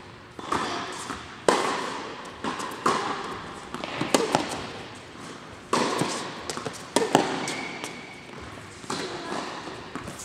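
Tennis rally on an indoor hard court: sharp pops of rackets striking the ball and the ball bouncing, about one every second or so, each trailing off in the hall's echo.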